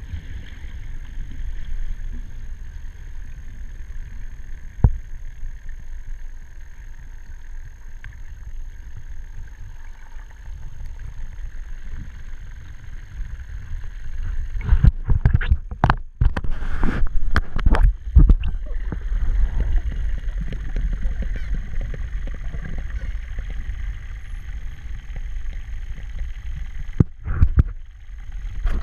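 Muffled underwater rumble of water moving against a camera in its housing, with a cluster of sharp knocks and crackles about halfway through and again near the end.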